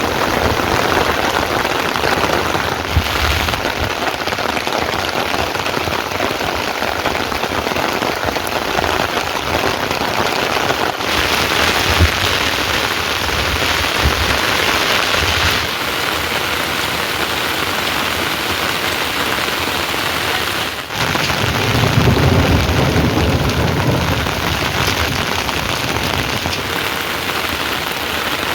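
Heavy rain pouring steadily, a dense hiss of falling water. A low rumble swells for a few seconds about three-quarters of the way through.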